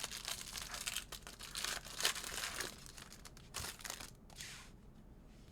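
Crinkling and tearing of a trading-card pack wrapper being opened, followed by a few light clicks of cards being handled.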